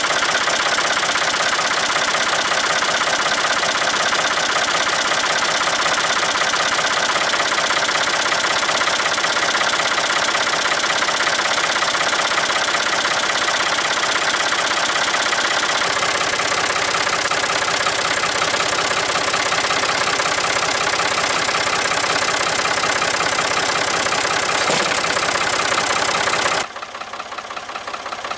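1966 Ford 4000 tractor's three-cylinder diesel engine idling cold, with a steady diesel clatter heard close up at the intake hose. Near the end the sound drops suddenly to a much quieter level.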